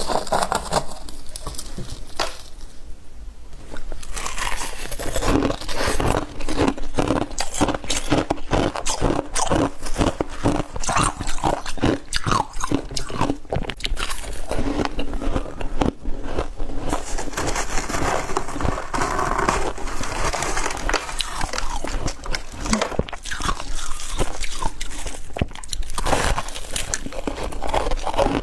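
A person biting and chewing crunchy freezer frost and ice close to the microphone: a dense, irregular run of sharp crunches.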